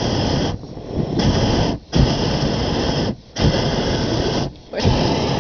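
Hot air balloon's propane burner firing in a run of about five short blasts, each about a second long with brief breaks between, the valve opening and closing abruptly.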